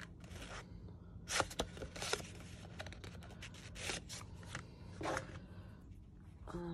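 A stack of small cardstock cards handled and fanned apart, the cards sliding and flicking against each other in a series of short, uneven papery scrapes.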